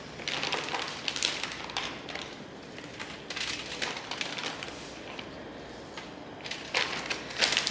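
Marinated chicken thighs being handled and laid on a wire rack in a tray: scattered soft wet slaps and light taps, bunched near the start, in the middle and near the end.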